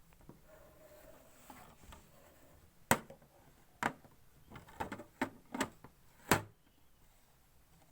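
Handling noise of ring-light mount parts: a light rustle, then a series of sharp clicks and knocks, about seven, from about three seconds in, as the parts are moved and fitted together.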